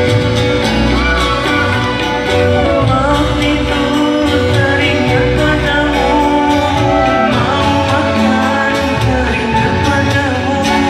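Live band music with a singer, amplified through the PA of a large studio hall.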